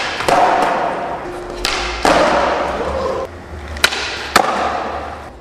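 Skateboard flatground flip tricks on a concrete floor: sharp cracks of the tail popping and the wheels slapping down on landing, three pop-and-land pairs in all, with the rumble of the wheels rolling in between.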